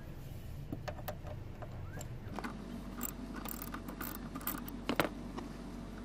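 Ratchet socket wrench clicking and metal clinking while a bolt is worked loose: a few clicks early, then an irregular flurry of clicks, with the sharpest knock about five seconds in.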